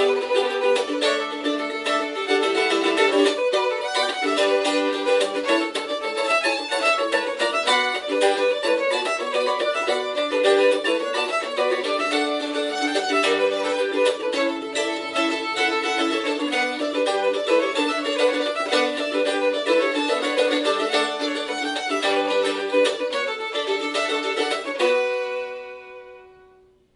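Fiddle and mandolin duet playing a lively Scottish reel, fast running fiddle notes over picked mandolin. About 25 seconds in, the tune ends on a final note that rings and fades away.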